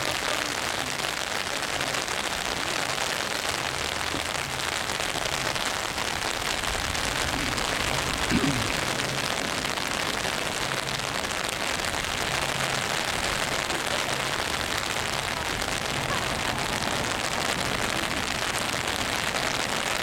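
Steady rain falling, an even hiss of drops on wet ground, with one brief louder sound about eight seconds in.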